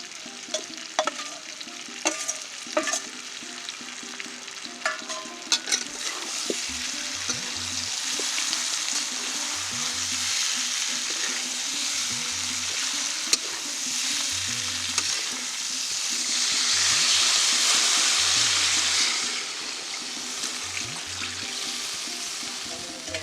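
Chicken frying in oil for a curry, sizzling steadily, with sharp clinks and scrapes of a ladle stirring in the pot during the first few seconds. The sizzle grows louder about six seconds in and is loudest for a few seconds about two-thirds of the way through.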